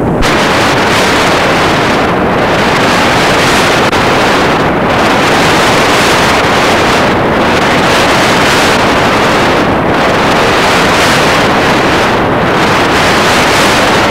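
Loud, steady hiss of static from a blank stretch of videotape, its high end thinning briefly about every two and a half seconds.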